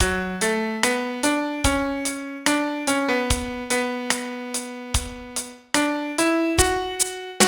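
Piano sound playing a song melody one note at a time, about two notes a second, each note struck and left to fade, with no singing or accompaniment.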